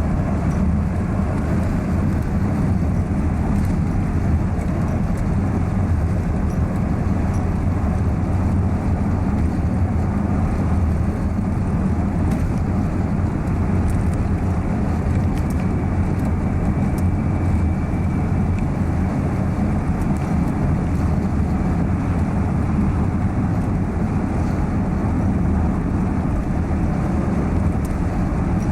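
Steady rumble of a moving car, a low engine and road-noise drone that holds level throughout.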